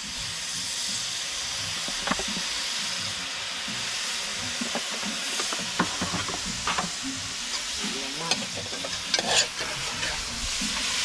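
Sizzling and crackling of cooking over an open wood fire: a steady hiss with scattered sharp pops, with a cluster of louder ones about nine seconds in.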